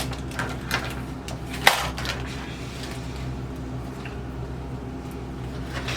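Small metal sewing machine parts clinking and rattling as they are handled, with one sharp click about a second and a half in.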